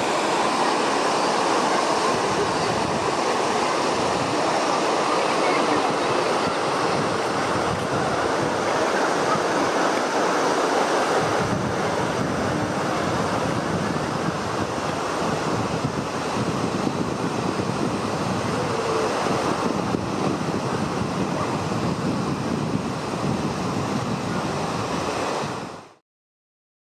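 Steady rushing of a mountain river's water, fading out near the end.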